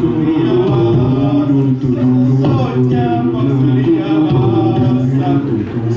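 Music with a man singing, in long held notes.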